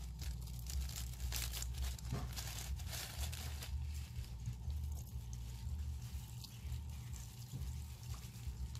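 Small plastic zip-top bag rustling and crinkling as it is pulled open and shaken, with tiny beads being poured out of it onto slime. The sound is a run of light, irregular crackles, busiest in the first few seconds, over a steady low hum.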